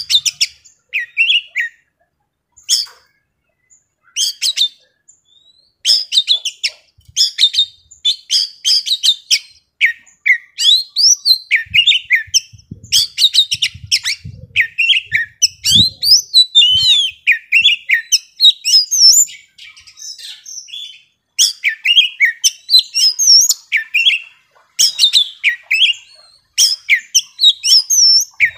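Young wild-caught Oriental magpie-robin singing a loud, rapid, varied song of whistles, chatters and sharp clicking notes. It comes in short scattered phrases at first, then runs nearly nonstop from about six seconds in, the energetic nonstop singing that keepers call gacor.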